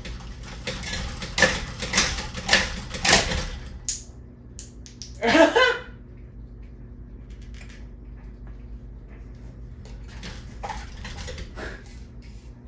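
Parts of a ceiling fan being handled and knocked: a quick run of loud clattering knocks in the first few seconds, then a brief pitched cry or squeak about five seconds in, and a few faint clicks near the end, over a steady low hum.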